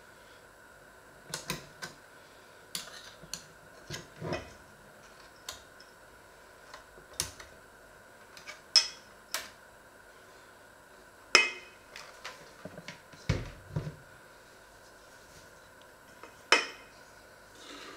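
Irregular clinks and knocks of a hand mixer's metal beaters against a stainless steel mixing bowl as batter is scraped off them, the mixer itself not running. A few louder sharp knocks stand out, the last as the bowl is lifted near the end.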